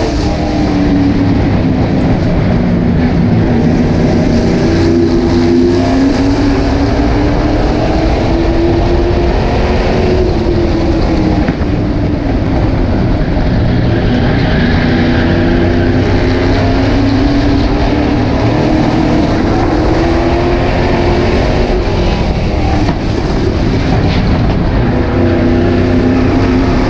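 Super stock race car's V8 engine running hard in a heat race, its pitch rising under throttle and falling back, over and over, every few seconds.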